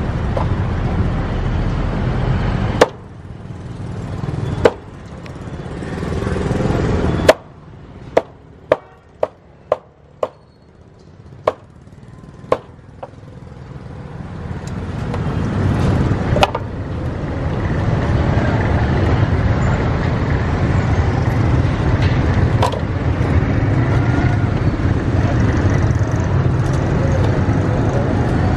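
A cleaver chopping roast duck on a thick wooden chopping board: about a dozen sharp chops, with a quick run of six in about two seconds a third of the way in. Steady street traffic noise runs underneath.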